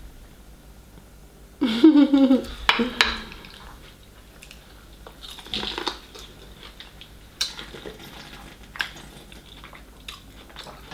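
Dishes and cutlery clinking and clattering as food is handled at the table, in scattered clicks. A short, loud wordless vocal sound comes about two seconds in.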